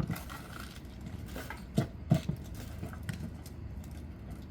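Jokgu game in play: scattered sharp thumps of the ball being kicked and bouncing on the court, the loudest two close together about two seconds in.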